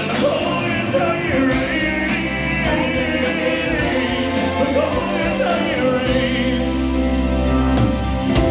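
Live band playing a slow rock ballad, with drums, cymbals, electric guitars and bass under sustained sung vocals.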